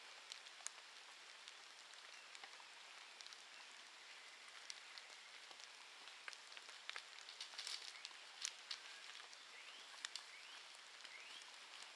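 Faint outdoor ambience: a steady high hiss with scattered light clicks and crackles, and a few short rising chirps in the last few seconds.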